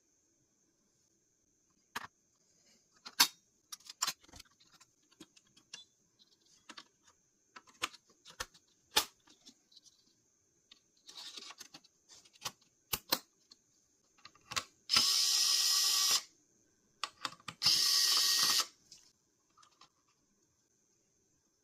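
Hands handling computer parts: scattered sharp clicks and taps, then two loud rasping scrapes about a second long each, a little apart.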